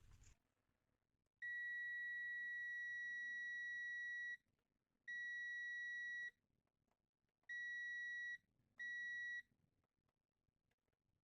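Digital multimeter's continuity beeper sounding as its probes are touched across a transformer's wires. It gives a steady high beep, one about three seconds long and then three shorter ones. Each beep means the two probed points are electrically connected.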